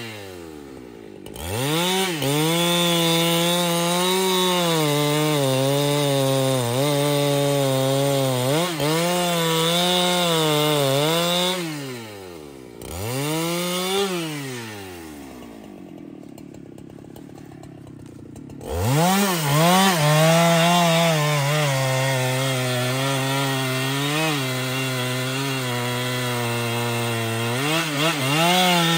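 Husqvarna 395XP two-stroke chainsaw cutting through a large trembesi log at full throttle, its pitch sagging and recovering as the chain bites into the wood. For a few seconds in the middle it drops to idle, then revs back up and cuts at a steadier pitch.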